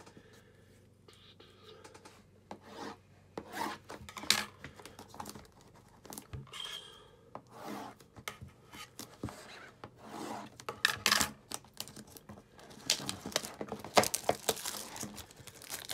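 Scissors cutting and scraping at the plastic shrink-wrap seal on a cardboard trading-card box, with the film being torn and rubbed off by hand: a run of irregular scrapes and rustles that grows busier over the last few seconds.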